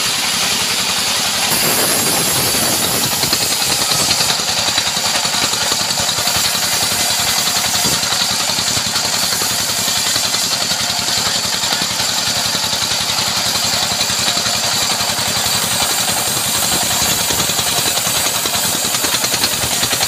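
Single-cylinder horizontal diesel engine running steadily with a fast, even beat, turning the V-belts that drive a sawmill bandsaw.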